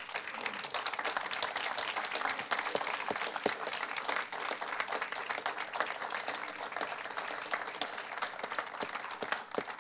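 Audience applauding: many people clapping together at an even level that thins out a little near the end.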